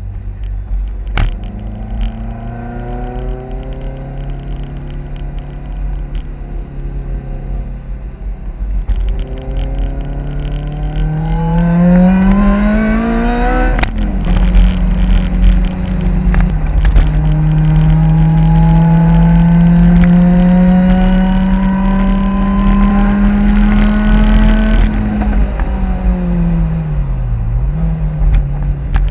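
Lotus Exige S240's supercharged 1.8-litre four-cylinder engine, heard from inside the cabin, pulling hard. Revs climb, drop sharply at a gear change about 14 seconds in, then climb steadily through a long pull. After that they fall off as the driver lifts, with a quick dip and rise in revs near the end.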